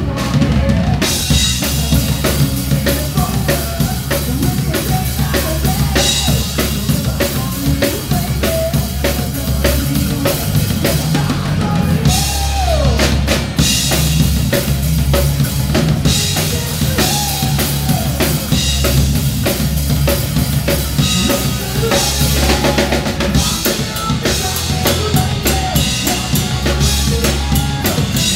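Live rock band playing through amplifiers: electric guitars and bass guitar over a drum kit with steady kick, snare and cymbal hits.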